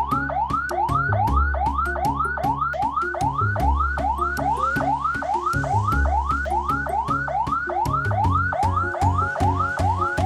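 Ambulance electronic siren in fast yelp mode: a rapid rising sweep repeating about three times a second without a break. A lower, repeating pattern of deeper tones runs beneath it.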